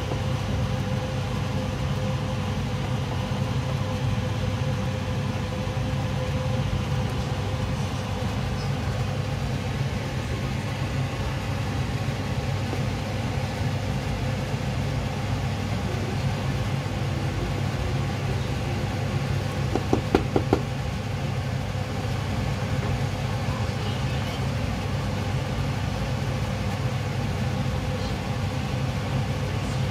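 Steady low rumbling hum over a pot of sinigang (shrimp and cabbage soup) at a rolling boil on a stove. About twenty seconds in come four quick knocks.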